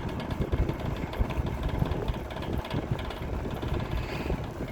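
Toastmaster 5337 metal box fan running on its low speed, with a steady rumble and an uneven rattling knock; the owner thinks the fan needs to be oiled.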